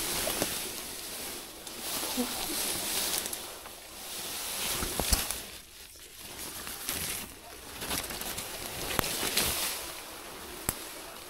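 Grass and dry fallen leaves rustling as a hand pushes through undergrowth, in uneven spells with a few light crackles and a brief lull partway through.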